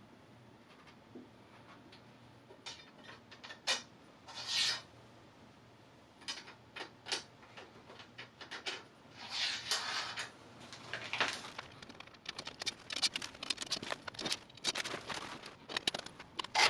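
Scattered light clicks, taps and short scrapes, as of hard parts being handled and set down, growing busier from about six seconds in.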